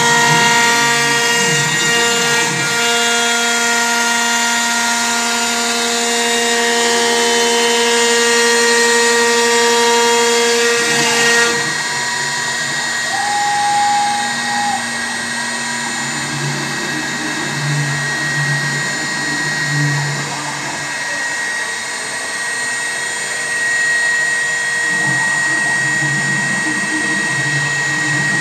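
A CNC router's spindle runs steadily as the cutter mills decorative grooves into furniture door panels, a whine of several steady tones over a hiss. About eleven seconds in the sound drops a little and loses much of its high hiss.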